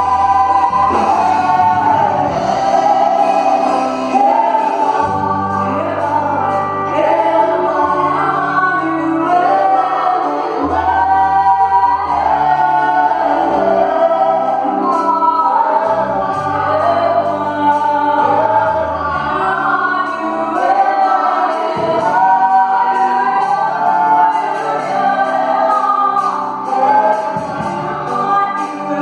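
A live gospel worship band playing a French-language song: female and male singers on microphones, with backing vocals, over electric guitar, keyboards and steady low bass notes, all amplified through the PA.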